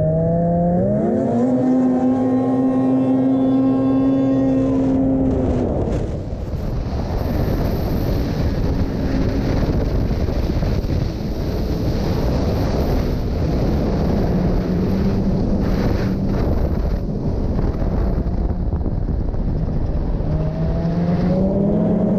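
Racing snowmobile's engine pulling away from a standstill: its pitch climbs and then holds steady while the sled gathers speed. After about six seconds a loud rush of wind and track noise takes over, with the engine only faintly heard beneath it, rising again near the end.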